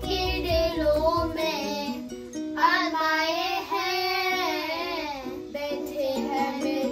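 Two children singing a Hindi song together in unison over instrumental backing music.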